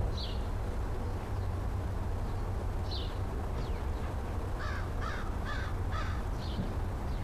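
American crow cawing, a quick run of four harsh caws about two-thirds of the way through, with a few short, higher calls before and after. A steady low rumble runs underneath.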